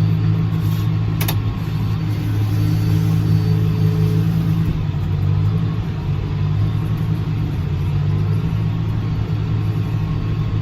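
Tractor engine running at a steady speed, a constant low hum, with one short click about a second in.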